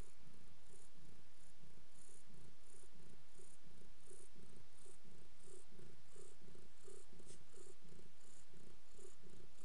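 Domestic tabby cat, a mother nursing her week-old kittens, purring steadily in an even, rhythmic pulse close to the microphone.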